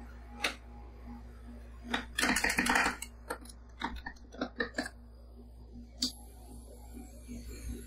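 Two metal spatulas chopping and tapping freezing blueberry whipped-cream ice cream on a stainless steel cold plate: a fast run of chopping strokes about two seconds in, then several separate taps, over a steady low hum.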